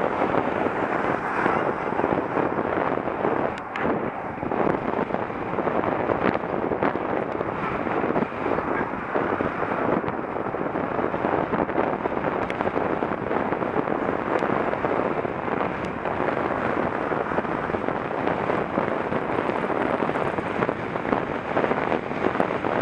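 Wind buffeting the microphone of a camera moving along a road: a steady rushing noise with constant crackle.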